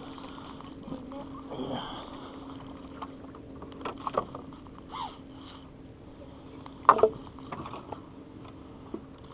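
Baitcasting reel being cranked steadily to bring in a hooked striped bass, over a steady low hum. There are scattered short knocks and clicks, the loudest about seven seconds in.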